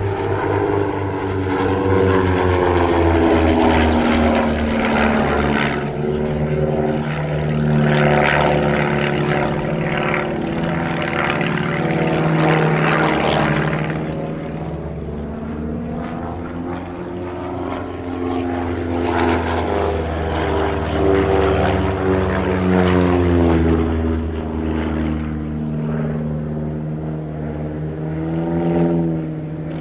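Piston engines and propellers of Van's RV-7 and RV-8 aerobatic planes, a steady drone whose pitch rises and falls again and again through the aerobatic manoeuvres, swelling louder and fading as they pass.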